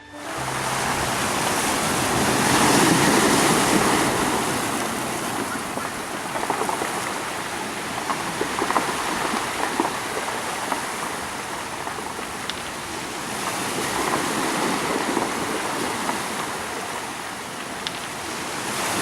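Sea waves washing in, a steady rush of surf that swells and eases every several seconds.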